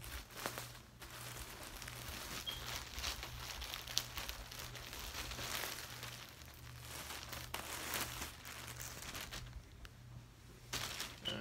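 Plastic packaging crinkling and rustling as a poly mailer is opened and a hoodie is pulled out of its clear plastic bag, with a sharp click about four seconds in.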